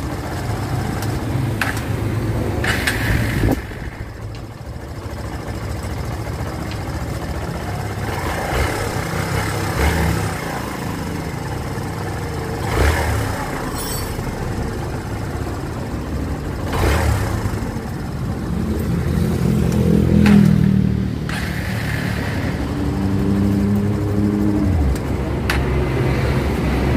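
Kawasaki Barako 2 motorcycle's single-cylinder four-stroke engine running, revved up and let back down several times while its carburetor is being tuned for hard starting.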